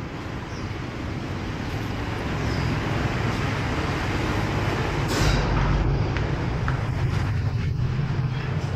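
Steady city street noise: a traffic rumble that grows somewhat louder partway through, with a brief loud rush about five seconds in.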